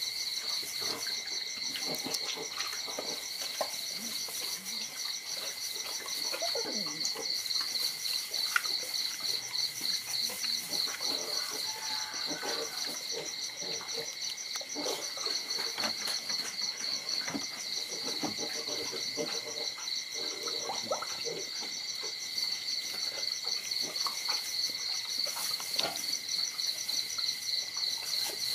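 Night chorus of calling frogs and insects: a fast, pulsing high trill that never lets up, over a steady high whine. Short faint squeaks and scuffles are scattered through it.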